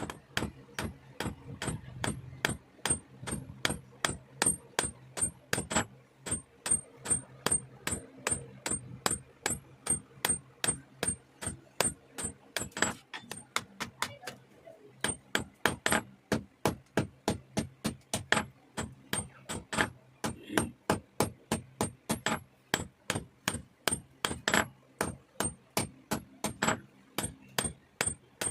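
A hammer striking metal over and over at a steady pace, about three blows a second, each blow leaving a short high metallic ring. A low steady hum runs underneath.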